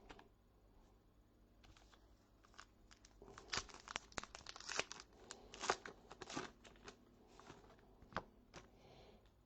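Foil wrapper of a trading card pack being torn open and crinkled, with the cards being handled: a quiet run of crackling and rustling in the middle, then a few scattered crinkles.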